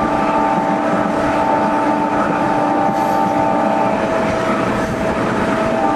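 Passenger train running: a steady rolling noise with a hum of several steady tones, which fades for a few seconds near the end.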